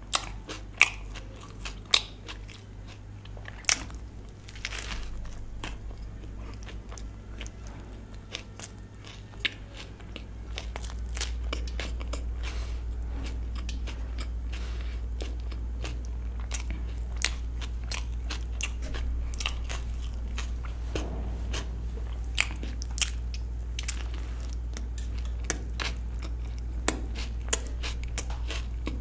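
A person eating close to the microphone, biting and chewing with many sharp, irregular mouth clicks. A low steady hum sits underneath and gets louder about ten seconds in.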